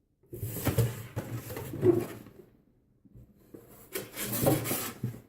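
Cardboard box being handled and turned over, two stretches of rubbing and scraping, the first ending with a louder knock about two seconds in.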